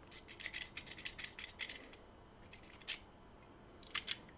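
Faint small clicks and light metallic rattles, a quick cluster in the first two seconds, then a single click and a pair of clicks near the end: small electronic parts and hand tools being handled.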